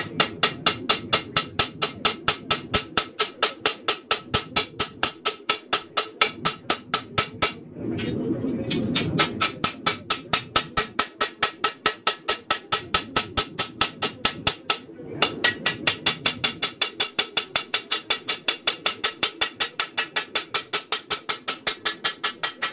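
Hand hammer forging a red-hot 1084 high-carbon steel knife blade on an anvil, in quick even blows of about four a second, each with a bright ringing clang. The rhythm breaks briefly about 8 and 15 seconds in, and the blows stop near the end.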